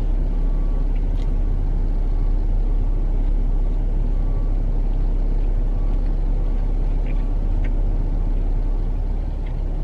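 Steady low rumble of an idling car heard from inside the cabin, with a few faint ticks.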